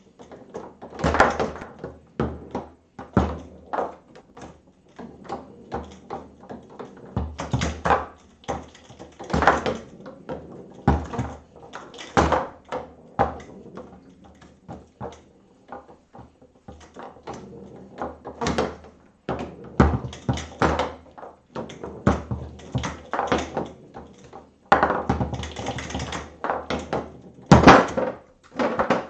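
Foosball table in play: an irregular run of sharp knocks as the ball is struck by and bounces off the plastic figures and the table walls, with the rods clacking as they are slid and spun.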